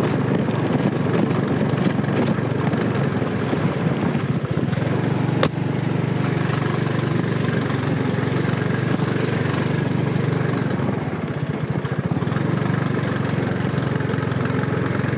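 Motorbike engine running steadily while riding along a rough dirt track, with a constant rushing noise over it; a single sharp click about five and a half seconds in.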